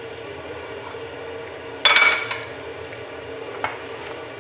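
Ceramic plate clattering against another dish or the counter, with a short ringing clink, about two seconds in; a lighter click follows near the end.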